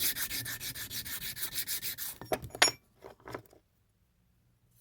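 A steel pocket-knife part rubbed back and forth by hand on sticky-back DA sandpaper laid on a flat magnetic chuck, in quick even strokes, to show which side is flatter. The rubbing stops about two seconds in, followed by a few sharp knocks as the piece is handled.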